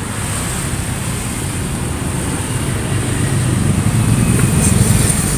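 Road traffic: a passing vehicle's engine rumble, growing louder over the last couple of seconds.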